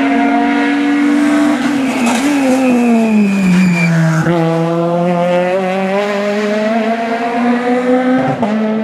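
Peugeot rally car engine passing close: the note falls as the car slows into the bend, with a brief high tyre squeal. It then climbs steadily under acceleration, and a gear change drops the pitch near the end.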